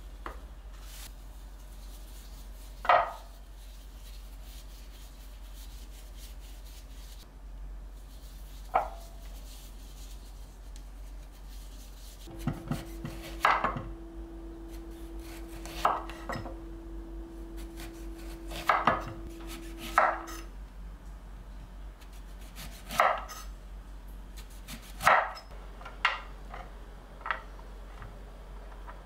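Kitchen knife slicing lemons thin on a wooden cutting board: separate knocks of the blade on the board, irregularly spaced a second or more apart.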